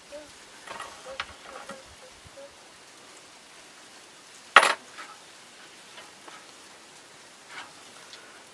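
Small scissors trimming a soft balata latex figure by hand: faint clicks and crackles of handling, and one short, much louder snip about four and a half seconds in.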